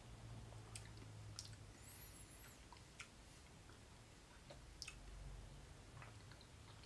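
Near silence: faint scattered lip and tongue clicks of a taster working a sip of whisky around his mouth, over a low steady hum.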